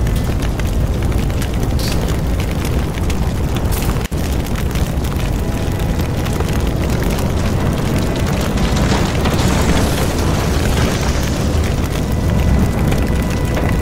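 Steady deep rumble of a blaze, with crackling over it. It drops out for an instant about four seconds in.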